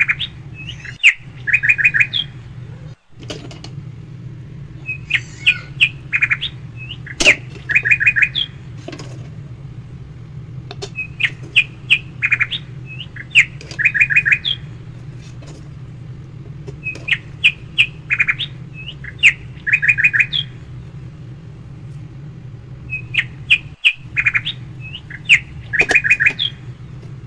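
Bird chirping in short phrases of quick high chirps ending in a rapid trill, the phrase repeating about every six seconds, four times over, above a steady low hum.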